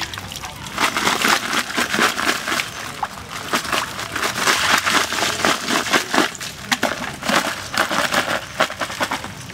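Live crabs tumbling inside a woven bamboo basket as it is shaken, their shells and legs clattering and scratching against the wicker in a dense run of clicks. It starts about a second in and stops just before the end.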